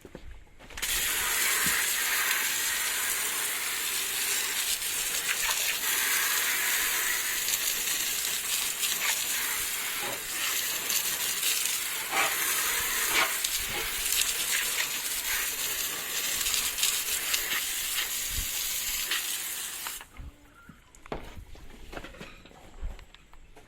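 Hose spray blasting a car wheel: a steady, loud hiss of water that starts just under a second in and cuts off sharply about four seconds before the end.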